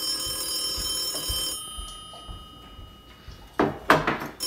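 Old-style telephone bell ringing for an incoming call. It rings and dies away about a second and a half in, then rings again near the end.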